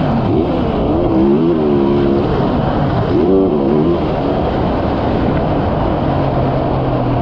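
Yamaha YZ450F's single-cylinder four-stroke engine revving up and down several times under throttle over a rushing hiss, then settling into a lower, steadier note about six seconds in.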